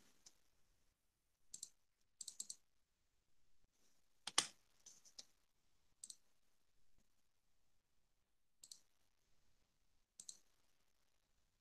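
Near silence broken by a dozen or so faint, irregular clicks from working a computer, the loudest about four seconds in.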